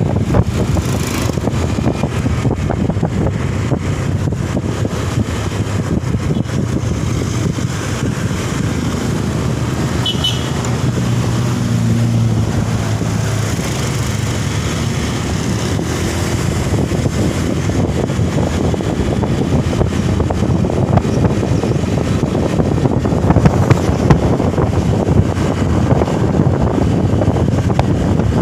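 Steady noise of a moving road vehicle, with wind rumbling on the microphone and a low engine hum that comes up briefly in the middle.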